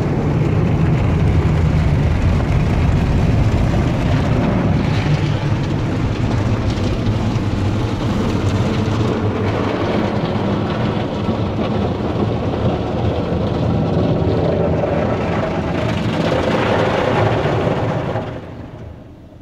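Automatic car wash's big rotating brushes scrubbing and water spraying against a minivan's body, heard from inside the cabin as a loud, steady rushing noise that falls away sharply near the end.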